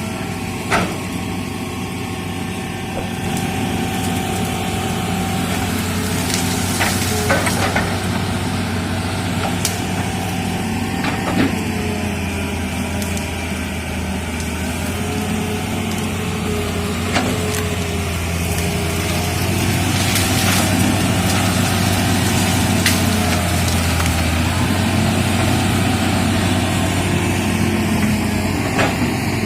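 Excavator's diesel engine running steadily under work, with scattered sharp knocks and cracks from the digging and clearing. It grows somewhat louder about two-thirds of the way through.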